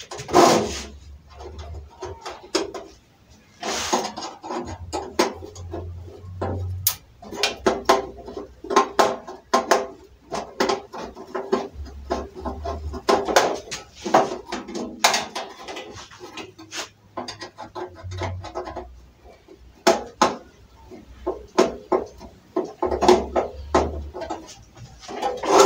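Irregular metallic clanks, taps and rattles of a sheet-metal two-burner gas stove frame being handled on a metal worktable, with a long tool poked through the side of the frame.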